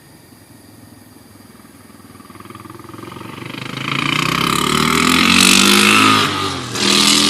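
Motorcycle engine coming up the road, growing steadily louder over a few seconds as it accelerates, with a brief dip near the end before it pulls on again with rising pitch.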